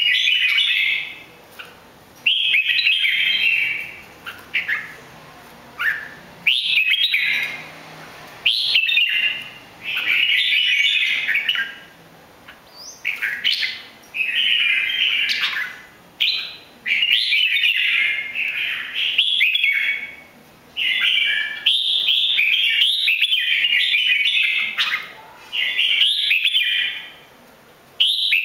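Red-whiskered bulbul singing: short, quick warbled phrases of about a second each, repeated every two seconds or so with short pauses between.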